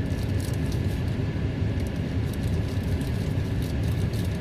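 Steady low vehicle rumble with small, faint clicks of loose plastic and metal parts being handled.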